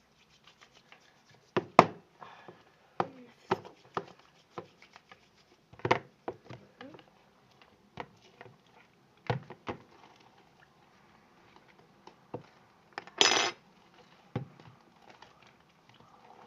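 Spoon clinking and knocking against a plate while stirring and gathering slime, in irregular taps, the loudest about two seconds in, with a brief harsher scrape near thirteen seconds.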